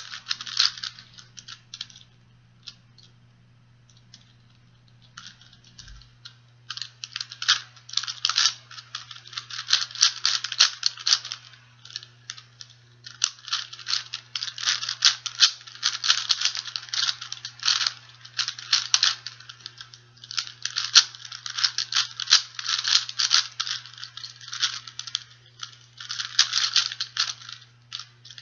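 A plastic 4x4x4 Rubik's cube being turned fast by hand, its layers clicking and clacking in quick runs with short pauses, nearly quiet for a few seconds about two seconds in.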